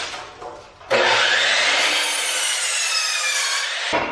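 Miter saw cutting through a wooden board: the motor's whine rises briefly, then sinks slowly as the blade works through the wood, and cuts off suddenly near the end.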